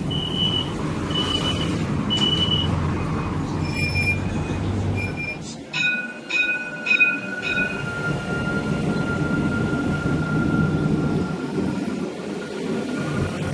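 Alstom Citadis 302 tram: a warning beeper sounds in short, evenly spaced beeps over the running rumble while the doors stand open. Later the tram runs along the track with a few clicks, then a steady high whine of wheel squeal over the low rumble.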